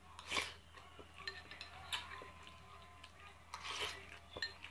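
Spoon clinking and scraping in a small bowl, with eating sounds, in a few short bursts about half a second in, about two seconds in and near four seconds.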